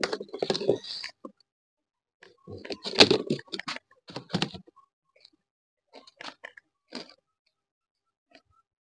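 Wire-mesh rabbit cages rattling and clattering as rabbits are handled into them. There is a burst of knocks at the start, a louder flurry about three to four and a half seconds in, then a few scattered clicks.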